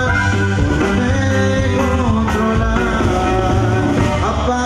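Live Mexican grupo music with accordion, guitar, electric bass and drums, and a singer over the band, played loud and steady.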